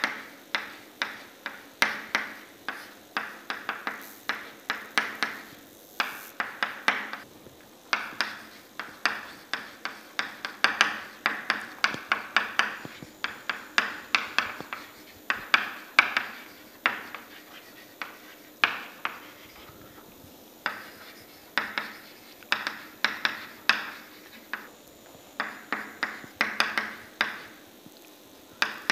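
Chalk tapping and scraping on a chalkboard while writing: quick runs of sharp clicking strokes with short pauses between words, and a brief lull about two-thirds of the way through.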